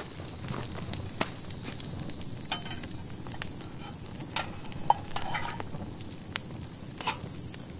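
Wood campfire crackling, with sharp pops scattered irregularly about once a second, over a steady faint high whine.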